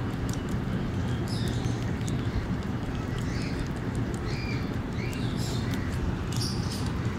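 Young rabbits munching fresh green leaves up close: a quick, irregular run of crisp crunching clicks from their chewing over a steady low rumble. Birds chirp briefly in the background.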